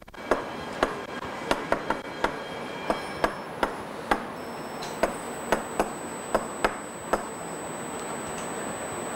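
Chalk tapping and clicking against a blackboard while writing: a quick, irregular run of sharp taps that stops about seven seconds in.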